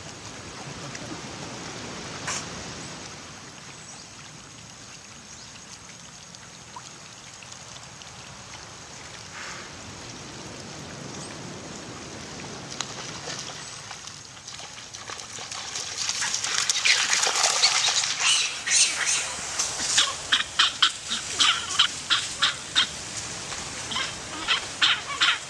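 A steady low background hiss, then from about two-thirds of the way through, a rapid run of loud, short animal calls, several a second.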